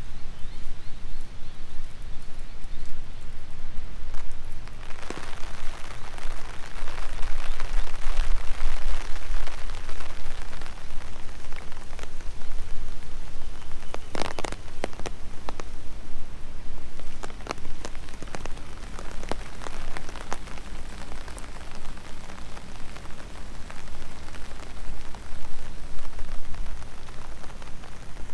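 Steady rain falling, heavier from about five seconds in, with scattered sharp clicks. The loudest clicks come about fourteen seconds in.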